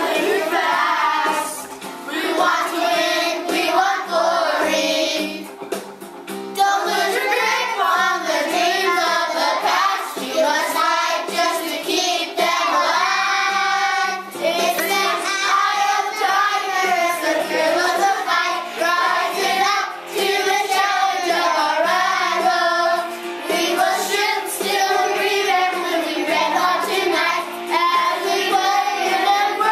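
A song sung by children's voices, with music playing.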